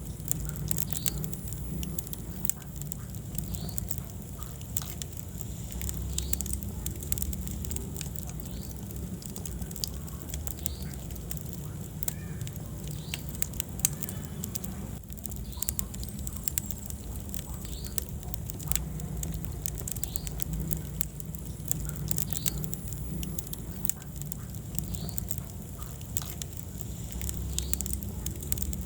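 Wood fire burning in a fireplace, crackling with frequent short sharp pops over a low steady rumble of the flames.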